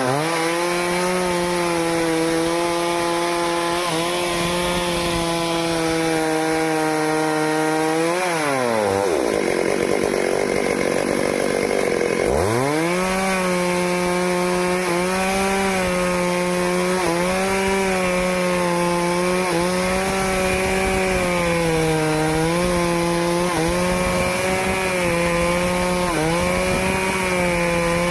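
Stihl chainsaw running at full throttle, cutting into a teak trunk, its engine note dipping briefly again and again under the load of the cut. About a third of the way in the revs fall away for a few seconds, then climb back up as it goes on cutting.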